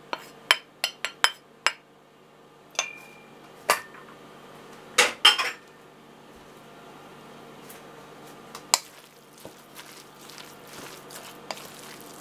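Dish clatter in a stainless steel mixing bowl: a quick run of sharp clinks as a white bowl is knocked against it to tip in chopped boiled egg, then a few louder clanks, one with a brief metallic ring. After that comes a quieter stretch of a plastic spatula scraping and stirring the mixture, with the odd knock against the bowl.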